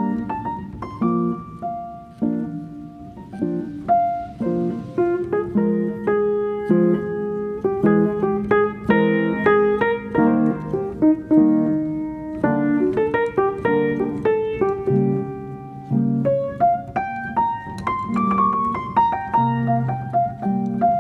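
Background piano music: a continuous run of struck notes, melody over lower chords.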